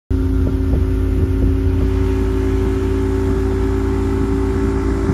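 Motorboat engine running steadily underway: an even hum over a heavy low rumble, with no change in speed. The sound starts abruptly at a cut just after the start.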